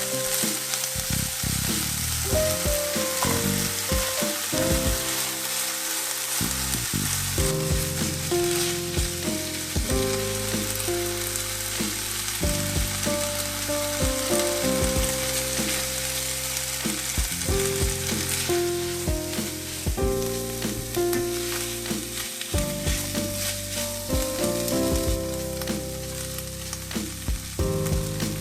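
Food sizzling steadily in a miniature frying pan, with scattered small taps and scrapes of a utensil stirring it. A tune of held notes plays underneath.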